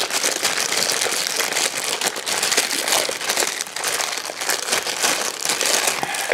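Thin clear plastic bag crinkling and rustling continuously as hands work a plastic cup out of it.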